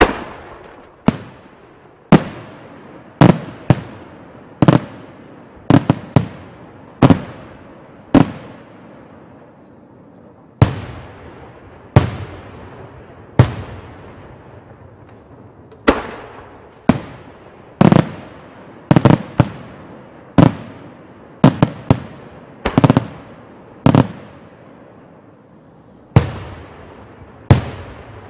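Aerial firework shells bursting in a rapid series of sharp bangs, about one a second, each fading out over a second or so, with a pause of a couple of seconds about a third of the way through.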